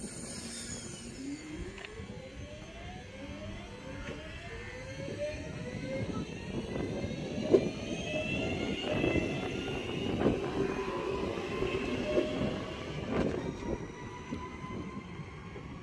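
Class 323 electric multiple unit accelerating away from the platform: its traction motors give a series of rising whines, one after another, over the rumble of the passing coaches. A few sharp knocks from the wheels come as the train picks up speed.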